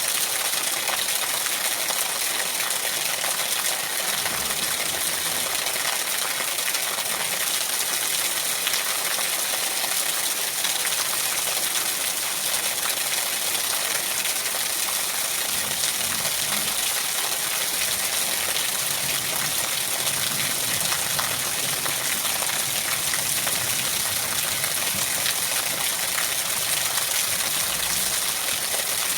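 Steady rainfall: a dense, even hiss of rain with fine pattering, unbroken throughout.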